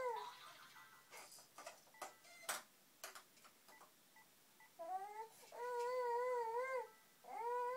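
Infant vocalizing in long, slightly wavering high-pitched calls: one trails off at the start, then three come in the last three seconds, the first rising in pitch. A few sharp clicks fall in the quieter stretch between.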